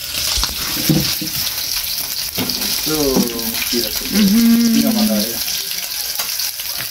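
Fish frying in hot oil, a steady sizzle throughout. From about three seconds in, a wordless voice hums for about two seconds over it, first sliding down, then held on one note.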